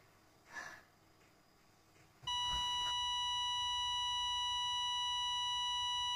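A steady electronic beep at one pitch comes in about two seconds in and holds unchanged; before it, near silence.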